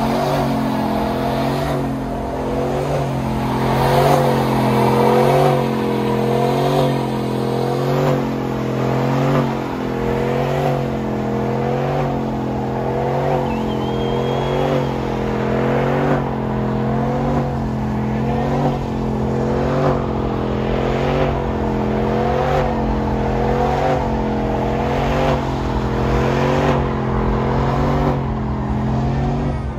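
Chevrolet Silverado pickup doing a burnout: the engine is held at high revs with the rear tyres spinning. Its note wavers up and down in a regular cycle of about once a second.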